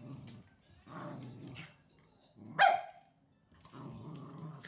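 Small dogs play-fighting: low growls come in three stretches of about a second each, with one short, sharp bark about two and a half seconds in, the loudest sound.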